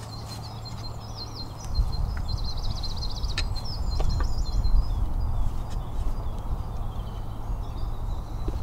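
Songbirds singing high chirps and a rapid trill over a low rumble, with a few sharp clicks.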